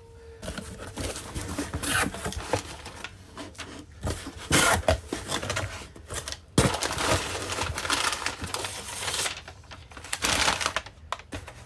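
Cardboard shipping box being opened by hand and crumpled brown packing paper pulled out of it: irregular rustling and crinkling of paper and cardboard, with a sharp snap about six and a half seconds in.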